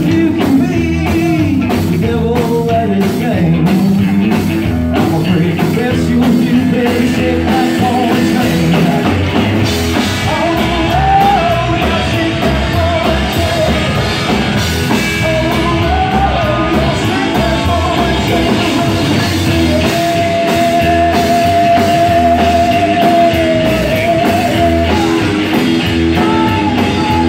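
Live rock-and-roll band playing an instrumental break between vocal lines: electric guitar lead over upright bass and drums. From about halfway through, the guitar plays long held and bent notes.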